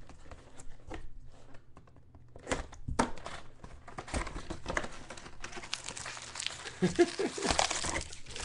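Foil trading-card pack wrappers crinkling and tearing as packs are handled and ripped open, with scattered crackles that thicken into steady crinkling about halfway through.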